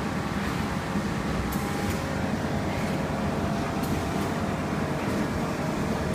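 Bubble mailer bag making machine running: a steady mechanical hum with a faint tick now and then.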